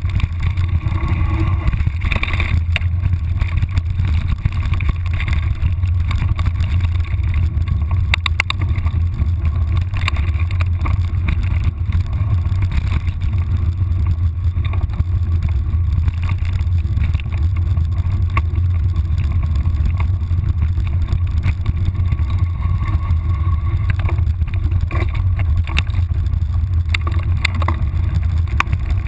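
Steady low rumble of wind and vibration on a moving action camera's microphone, with scattered clicks and rattles.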